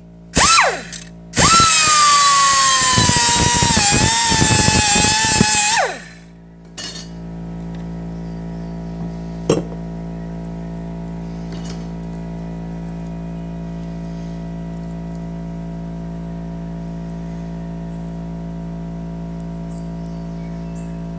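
A small cut-off tool with an abrasive wheel cutting the steel of an ammo can: a brief blip just after the start, then a loud whine for about four seconds that drops in pitch as the wheel bites into the metal, before it spins down. After that a steady hum runs on, with a single click a few seconds later.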